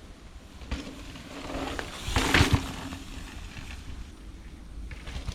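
A mountain bike rolling through on a dirt trail: a rising rush of tyres on dirt that peaks a little past two seconds in with a few low thumps, then fades.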